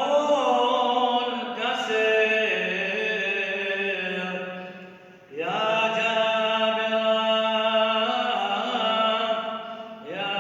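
A single male voice singing Eastern Christian liturgical chant, holding long, slightly ornamented notes. He pauses for a breath about five seconds in.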